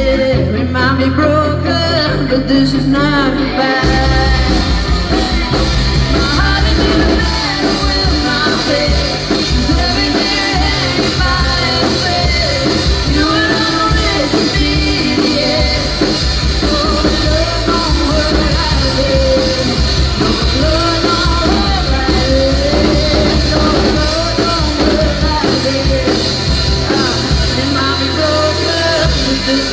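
A rock band playing live, loud and steady; the sound gets fuller and brighter about four seconds in.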